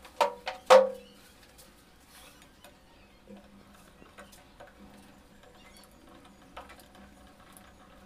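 Three sharp knocks, each with a short ring, in the first second, the third the loudest, then faint scattered clicks: an electric water heater's bottom cover plate and pipe fittings being handled as the cover is fitted back on.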